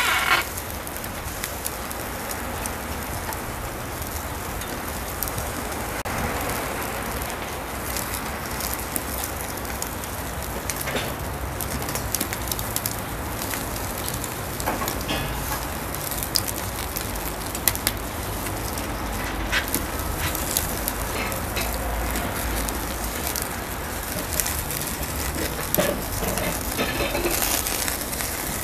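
Whole hearts sizzling on the grate of a charcoal kettle grill over open flames: a steady hiss with scattered sharp crackles and pops from the burning coals.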